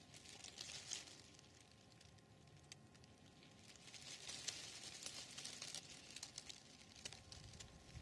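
Faint crackling rustle of dry leaves and pine needles, in two short spells about half a second in and from about four to six seconds in.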